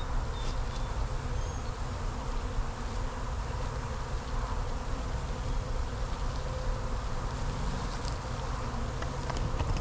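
A large mass of Italian honeybees from a freshly installed package buzzing steadily around the hive, with a few faint clicks near the end.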